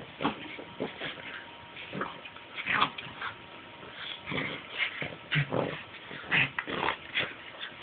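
Two pugs play-wrestling, making a quick, irregular stream of short grunting and whimpering noises, several a second.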